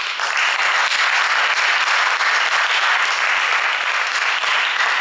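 Audience applause: dense, steady clapping from many hands.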